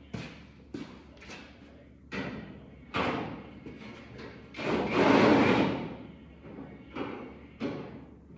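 Hand tools knocking and clanking on a truck's hood hinge bolts as the last bolts come out. A string of sharp knocks ring briefly, and a louder, longer rattling noise comes about five seconds in.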